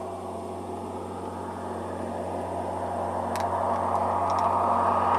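A steady low engine hum runs throughout, with the tyre and engine noise of an approaching vehicle growing louder toward the end. A couple of faint clicks fall in the middle.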